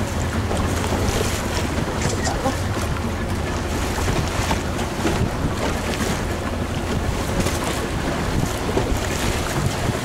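Wind buffeting the microphone and choppy sea water splashing around a moving small boat, over a steady low hum.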